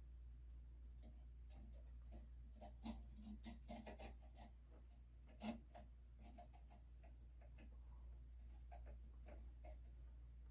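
Scattered light clicks and taps of a Noctua NF-A9 fan and its wire mounting clips being handled and positioned on a CPU heatsink, loudest about three seconds in and again near the middle, over a low steady hum.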